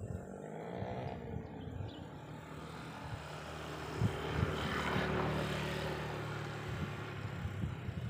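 A motor vehicle passing by: a steady low engine hum with a rushing sound that grows louder to a peak about five seconds in, then fades away.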